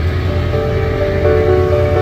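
Ferry engine with a steady low drone, overlaid from about a third of a second in by background music of held notes.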